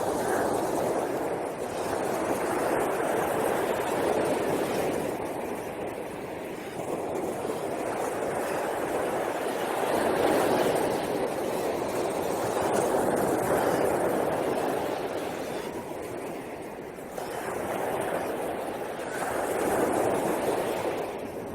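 Sea surf washing onto a beach, a steady rushing that swells and ebbs every few seconds.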